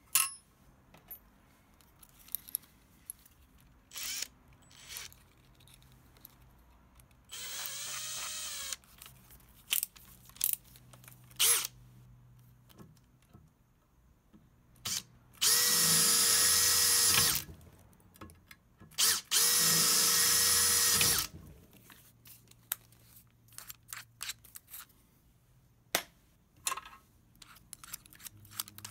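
Electric drill with a small twist bit drilling a hole through the scooter's metal deck. It runs twice for about two seconds each, with an even whine, after a shorter, quieter spin-up earlier. Light clicks and knocks from handling come in between.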